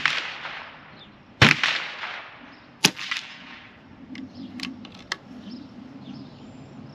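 A .25-calibre Cattleman M1 air rifle firing a steady string of shots, each a sharp crack with a short echo. One rings out as the sound opens, another about a second and a half in, and another near three seconds in. A few light clicks follow a second or two later.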